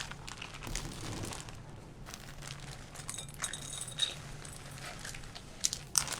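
Peanuts being crushed in a plastic zip-top bag: faint crinkling of the bag with scattered light taps and crunches, a few sharper ones near the end.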